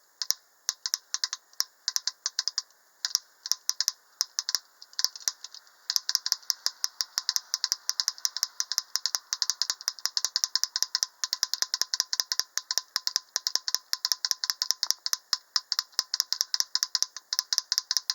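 Homemade mechanical woodpecker's beak tapping metal on metal inside the figure: a rapid run of sharp clicks imitating a woodpecker drumming. The taps come in uneven spurts at first, then settle into a steady, faster rattle, about six a second, from about six seconds in.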